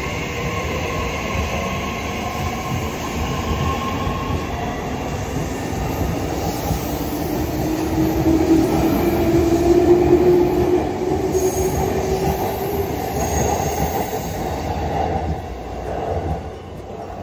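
A train running past with steady rail and wheel noise and a pitched whine that slides in pitch. It is loudest about ten seconds in and drops away just before the end.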